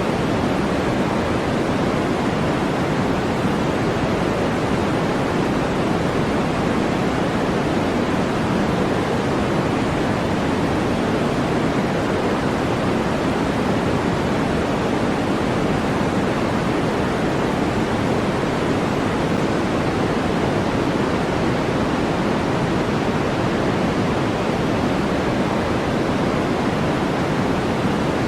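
Continuous electronically generated noise from a white-noise sleep track: an even, unchanging hiss, darker than pure white noise, with most of its weight in the lower middle range.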